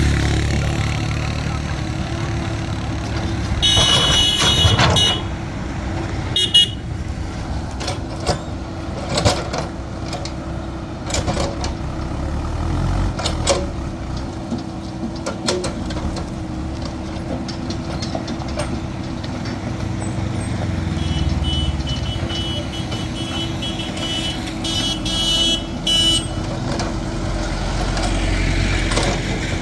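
A backhoe loader's diesel engine running steadily, with scattered sharp knocks, while vehicle horns honk several times, about four seconds in and again in a cluster of short toots near the end.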